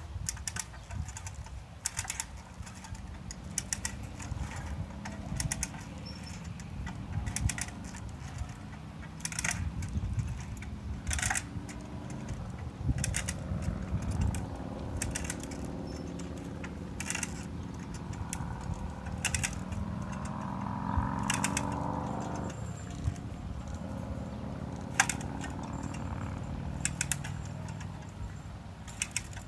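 Hand-cranked come-along winch ratcheting as it tensions a welded wire fence: short runs of pawl clicks about every two seconds with each stroke of the handle. About two-thirds of the way in, a rising strained creak builds under load and cuts off suddenly. A low rumble of wind on the microphone runs underneath.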